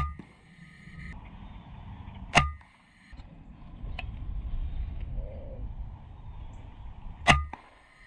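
Three shots from a PCP air rifle, each a sharp crack followed by a brief ringing tone. The shots come about 2.4 s and then about 5 s apart.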